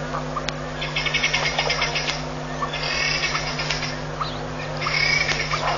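Rapid pulsed animal calls in bursts of about a second, repeating roughly every two seconds, over a steady low hum.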